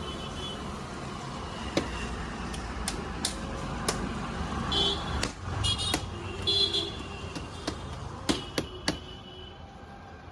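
Busy city street traffic: a steady rumble of vehicles with short horn toots about five and six and a half seconds in, and scattered sharp clicks and knocks.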